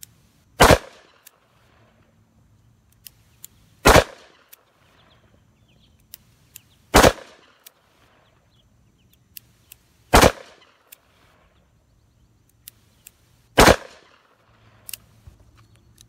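Smith & Wesson Model 19 revolver with a power-ported barrel firing five single shots, about three seconds apart, with faint clicks between shots.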